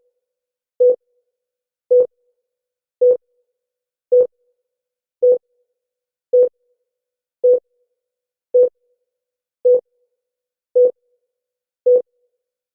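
Electronic heartbeat sound effect: a single short, low beep repeating steadily about once a second.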